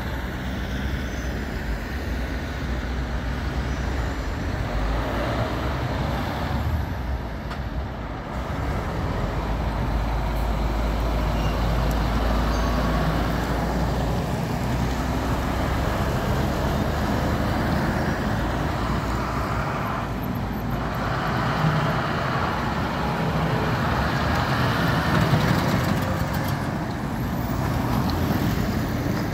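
Road traffic with heavy trucks and cars driving past close by: a continuous diesel engine rumble and traffic noise, with the deep rumble heaviest in the first half as a semi-trailer lorry passes.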